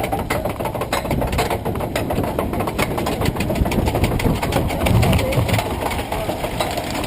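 Steel roller coaster train running on its track, a continuous low rumble with a dense, rapid clatter.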